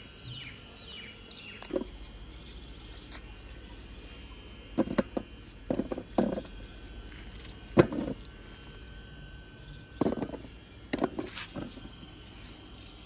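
Potatoes being cut with a small knife and the chunks dropped onto a steel plate: a scatter of sharp knocks, several in quick clusters, the loudest about eight seconds in. A few short falling chirps near the start and a steady faint insect-like chirring underneath.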